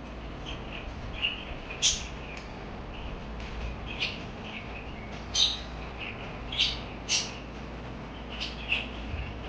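Pet parakeets chirping: short, sharp high chirps and squawks at irregular intervals, about one every half second to second, over a faint low hum.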